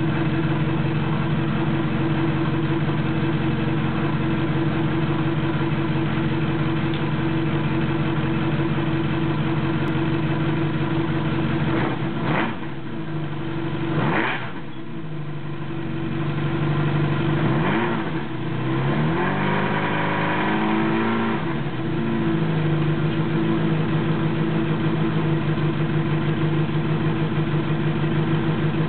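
1980 Honda CB750C air-cooled inline-four running through a Cycle-X 4-2-1 exhaust with the stock muffler, fed by GSX-R750 carburettors on pod filters. It idles steadily, takes two quick throttle blips about twelve and fourteen seconds in, then revs up and falls back around eighteen to twenty-one seconds before settling back to idle.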